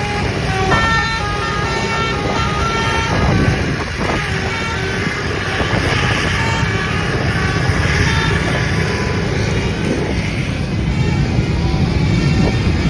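Dewi Permata bus's 'telolet basuri' multi-tone horn playing a quick tune of short notes at different pitches, over the low rumble of bus engines and traffic. Most of the notes come in the first few seconds.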